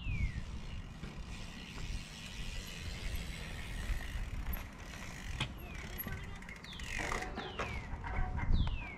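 Wind rumbling on the microphone over the faint ticking of a bicycle freehub ratchet, with a few short falling whistles near the end.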